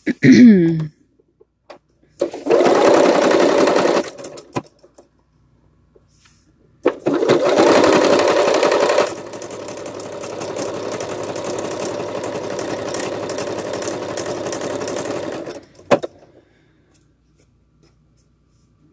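Electric sewing machine stitching through plush fabric in bursts: a short run about two seconds in, then a longer run from about seven seconds that goes quieter and steady after nine seconds and stops before sixteen seconds, followed by a single click. A brief falling voice-like sound comes right at the start.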